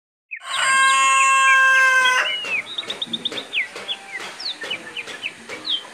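A rooster crowing once, a loud held call of about two seconds, followed by a run of quick, high chirps.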